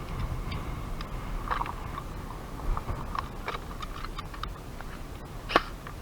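Irregular sharp clicks and pops of airsoft guns firing, with one louder crack near the end, over a low rumble of wind and handling noise on the microphone.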